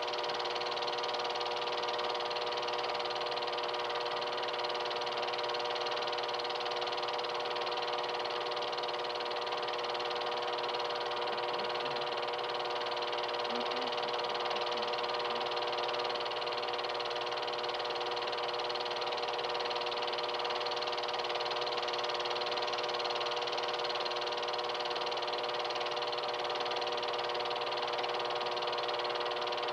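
Film projector running: a steady mechanical hum with a constant whir of noise that does not change.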